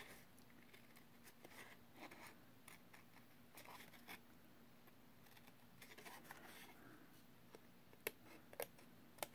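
Small scissors snipping faintly through embossed cardstock: short, quiet cuts scattered throughout, with a few sharper snips near the end.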